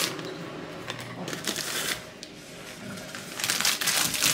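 Plastic packet of puffed rice cakes rustling and crinkling in several bursts as the rice cakes are taken out and laid on a plate; the rustling is loudest near the end.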